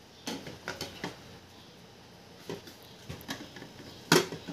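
Plastic food pusher being slid down into the juice extractor's plastic feed chute: a series of light plastic knocks and scrapes, with the sharpest knock near the end as it drops into place.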